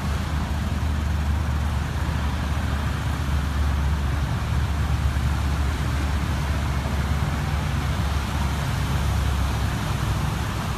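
Traffic driving through standing floodwater on a wet road: cars, taxis and motorcycles passing with their engines running and tyres swishing through the water. The sound is steady, with no single loud event.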